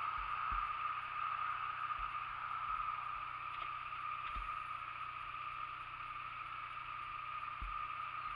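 Honda Nighthawk 250 motorcycle's air-cooled parallel-twin engine idling at a standstill while the rider tries to find neutral, under a steady hiss, with a few soft low thumps.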